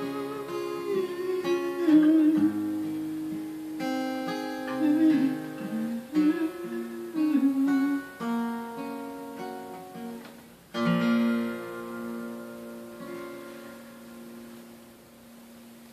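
Acoustic guitar playing the closing bars of a song. It ends on a chord struck about eleven seconds in that rings out and slowly fades.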